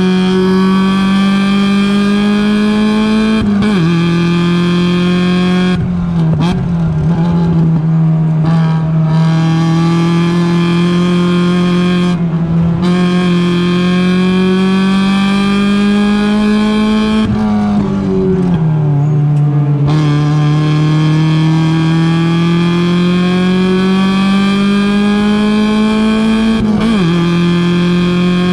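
Mazda Miata race car's four-cylinder engine running hard, heard from on board. The revs climb slowly down the straights and fall away sharply several times. There are two rougher, uneven stretches where the note breaks up.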